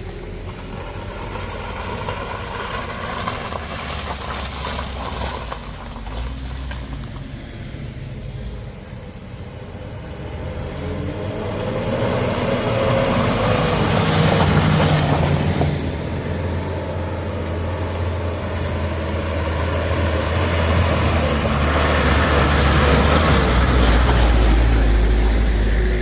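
Heavy road vehicles' engines running on a steep uphill road, a steady low hum that grows louder twice, about halfway through and again near the end as vehicles come close.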